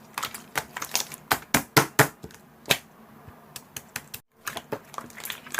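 Slime being squeezed and poked by hand, giving a run of sharp, irregular sticky clicks and small pops, several a second; the sound cuts out briefly about four seconds in.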